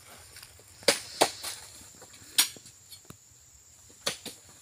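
Oil palm fruit bunches being loaded into a hanging scale's sling with a hooked pole, landing with sharp knocks: two close together about a second in, one near the middle and one near the end.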